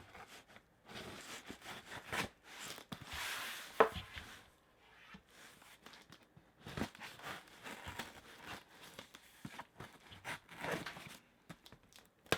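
A cardboard mystery box being opened by hand: tape and cardboard tearing and crinkling in irregular bursts, with one sharp knock about four seconds in.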